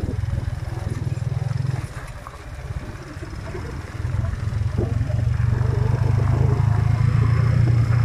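Motorcycle engine running while riding over a gravel road. The engine note drops away about two seconds in and picks up again, louder, from about four seconds.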